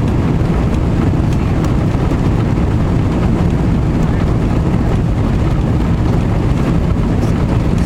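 Jet airliner engine noise, a steady loud rumble.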